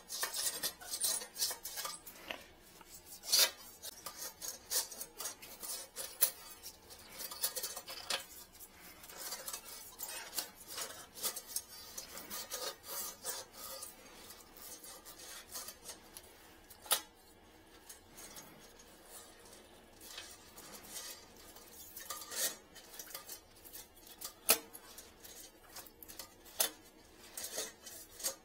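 Irregular scraping, rasping and sharp clicks of a metal fishing wire being worked inside a toilet's trap to hook a lost object.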